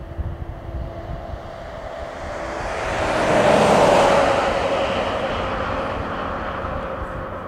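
Military jet aircraft passing by: the jet noise swells to its loudest about halfway through, then slowly fades.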